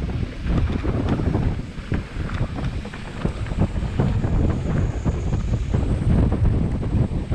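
Wind buffeting the microphone of a camera riding down a trail on a mountain bike, with a steady rumble and frequent short knocks and rattles from the bike over the rough ground.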